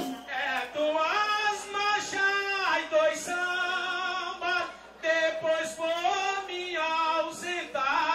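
Singing: a single high voice holding long notes and sliding between them, with a short break about five seconds in.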